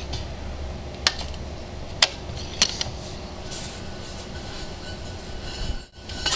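A few sharp metallic clicks and clinks as a large diamond core bit is threaded onto the core drill's spindle and the motor head is raised on the drill stand, over a low steady rumble.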